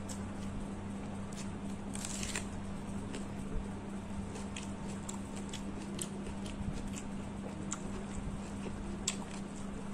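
Eating sounds: fingers mixing rice and fish curry on a steel plate and a mouth chewing, with scattered small wet clicks and one longer squelch about two seconds in. A steady low hum runs underneath.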